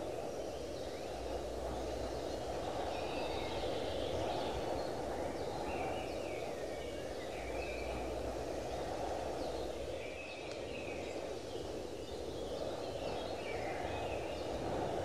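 Outdoor ambience: birds chirping repeatedly over a steady low rushing noise.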